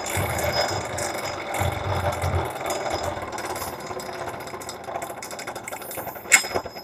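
Twice As Sharp scissor sharpener running with a rattle, slowly getting quieter. A part on the machine has just worked loose.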